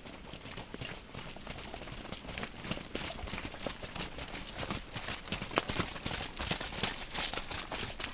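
Hooves of several horses walking on a wet, muddy dirt road: a dense, uneven run of hoof strikes.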